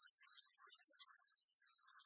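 Near silence, with only faint scattered crackle.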